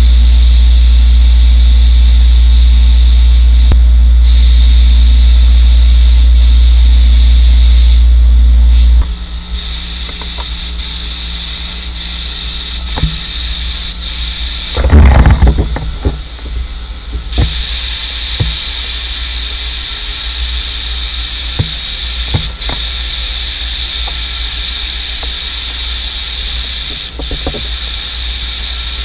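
Gravity-feed spray gun hissing as it lays polyester primer onto a steel fender in long passes, with short breaks where the trigger is let go. A heavy low hum underlies the first nine seconds and then stops. There is a brief louder jumble of knocks about fifteen seconds in.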